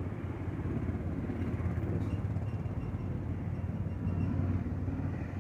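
Mahindra Bolero's diesel engine idling: a steady low rumble.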